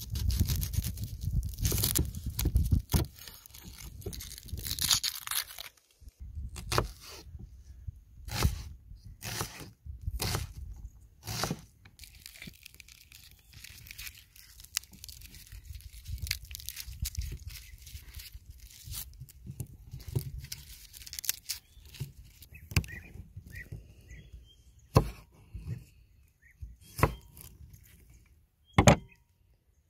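Food prep on a wooden cutting board: a chef's knife cuts through an onion, then a garlic bulb is broken apart and the papery skins crackle and tear. Near the end come a few sharp knocks as the knife blade meets the board while slicing garlic cloves.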